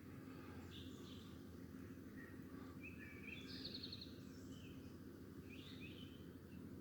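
Faint outdoor ambience: scattered bird chirps and calls, with a short rapid trill about three seconds in, over a low steady background hum.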